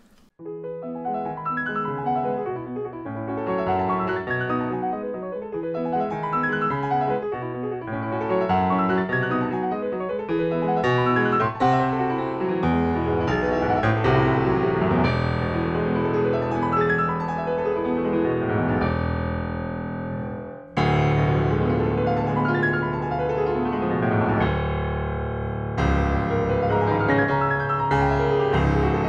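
Fazioli full concert grand piano, freshly tuned, played solo in a classical piece. The playing builds from moderate to loud with heavy bass chords from about halfway. It breaks off briefly about two-thirds of the way in, then comes back loud.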